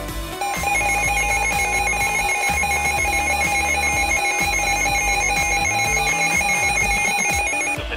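Electronic emergency alert tone: a steady lower tone with a rapidly warbling higher tone on top, sounding for about seven seconds over background music. It starts about half a second in and cuts off just before the end.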